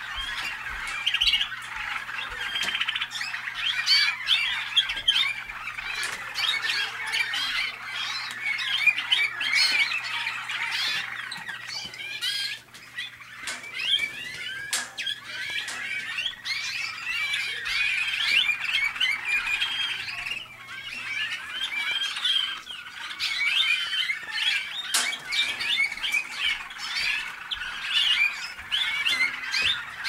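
Several Waterslager (Malinois) song canaries singing at once, a dense continuous chorus of warbling and rolling notes that thins briefly about halfway through.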